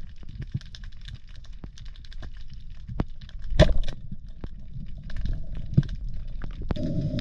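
Rubber-band speargun fired underwater at a whiting: one sharp crack a little past halfway, over steady fine clicking and crackling in the water.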